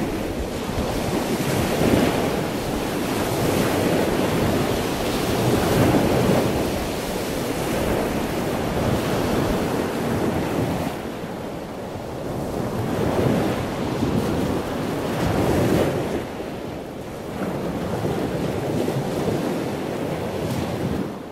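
Rushing, surf-like noise that swells and eases every few seconds, like waves washing in.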